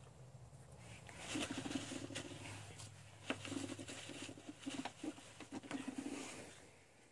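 Nitrile-gloved hand rubbing and scraping on the rear brake caliper bracket, a scratchy rustling with a few sharp clicks, the loudest about three seconds in.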